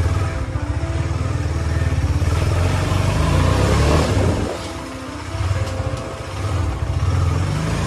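Motorcycle engine running just after a cold start, with an even low pulsing beat as the bike pulls away, revving up about four seconds in, easing off, then picking up again.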